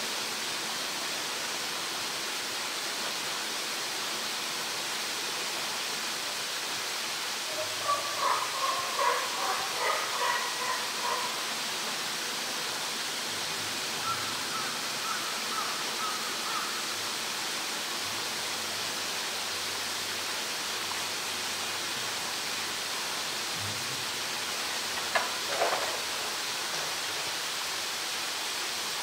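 Steady rushing noise like running water. A short cluster of higher-pitched calls comes about eight seconds in, and a single sharp knock comes near the end.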